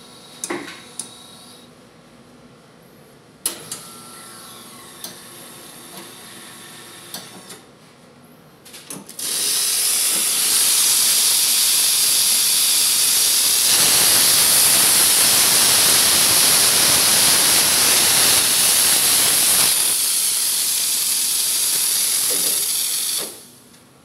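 Faema E71 espresso machine's steam wand opened: after a few light clicks, steam hisses out loudly and steadily for about fourteen seconds, fuller for a while in the middle, then cuts off.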